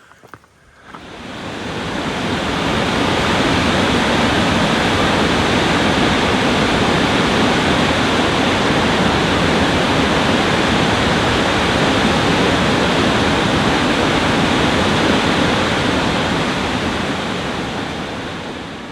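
Waterfall: a loud, steady rush of falling water that fades in over the first couple of seconds and tapers off at the end.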